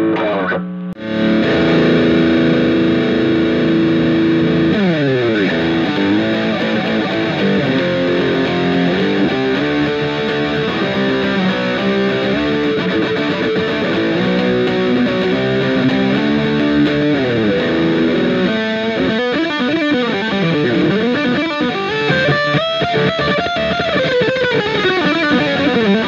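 Fernandes TEJ Telecaster-style electric guitar being played: held chords at first, a long downward slide about five seconds in, then a run of single notes. From about two-thirds of the way through, the notes bend widely up and down in pitch.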